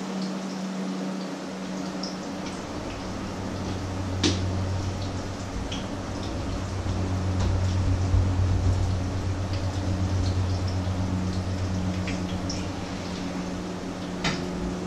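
Patties frying in oil in a pan on the stove: a steady sizzle with scattered small pops, over a low steady hum. A sharper click about four seconds in and another near the end.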